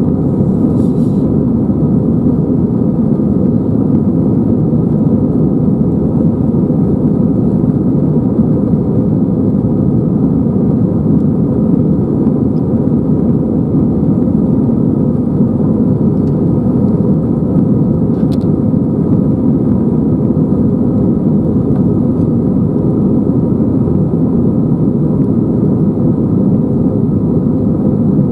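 Steady low rumble of an Airbus A320's jet engines and airflow heard inside the passenger cabin during the climb after takeoff.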